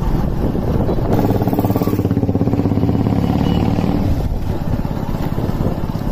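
Motorcycle engine running as the bike is ridden, a steady stream of exhaust pulses. The engine note is fuller from about one second in until about four seconds in.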